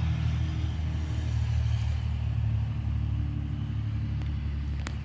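An engine running steadily at idle, with a single sharp click near the end.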